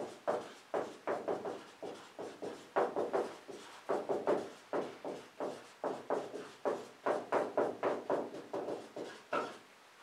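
Dry-erase marker squeaking on a whiteboard as a line of words is written: a quick run of short strokes, about three a second, that stops shortly before the end.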